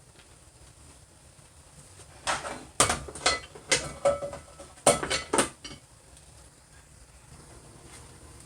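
Kitchen pots and metal utensils clanking: a run of about eight knocks and clinks between about two and five and a half seconds in, some ringing briefly.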